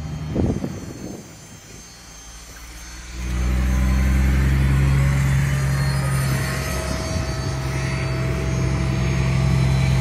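ABB 350 kW DC fast charger powering up about three seconds in, then running with a steady low hum and a faint high tone while it prepares to charge the car.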